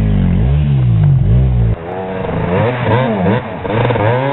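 Enduro dirt bike engine revving up and down repeatedly as it is worked up a steep, rocky climb. The deep low rumble drops away abruptly about two seconds in, and the revving carries on.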